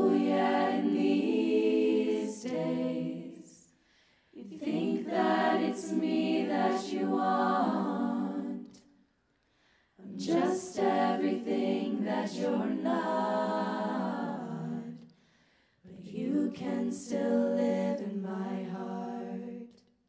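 Women's a cappella group singing held chords together without instruments, in four long phrases of a few seconds each with short pauses between them.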